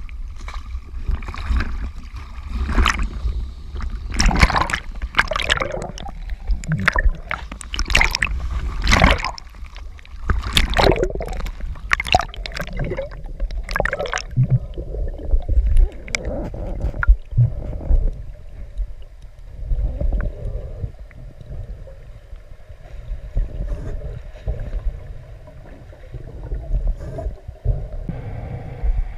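Sea water splashing and sloshing around a camera at the surface, with a heavy low rumble. About fourteen seconds in, the splashing stops and the sound turns dull and muffled as the camera goes under, leaving a low underwater rumble with some gurgling.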